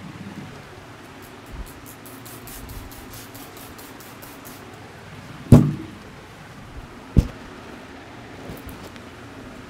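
Barber's hands at work in a head massage: a few seconds of faint rapid tapping, then two loud, sharp smacks about a second and a half apart, the first one the louder.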